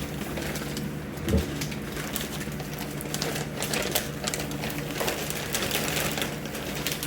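Plastic packaging being handled: rapid crinkling and clicking over a steady low hum, with a soft thump about a second in.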